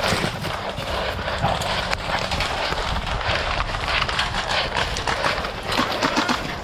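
Running footsteps pounding on the ground, a quick irregular patter of thuds with kit rattling, over a low rumble of movement on the microphone.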